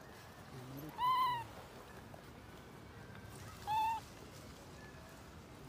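A macaque giving two short, high-pitched coo calls, each rising and then falling in pitch: one about a second in, the other near four seconds in.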